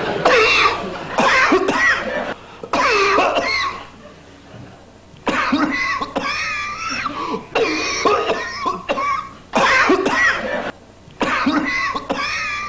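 A person coughing over and over in loud fits, with a short break about four seconds in and another near eleven seconds.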